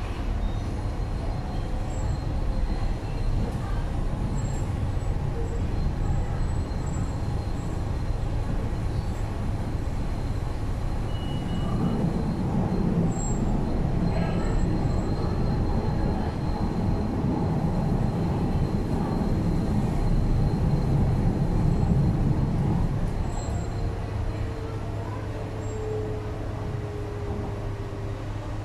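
Cabin running noise of an MTR East Rail Line R-Train: a steady rumble of wheels and bogies on the track that grows louder midway. Near the end it eases and a faint motor whine falls slowly in pitch as the train slows towards a station.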